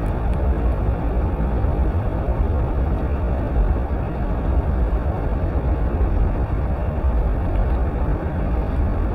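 Steady low roar of the Rhine Falls waterfall, an even rushing rumble without breaks.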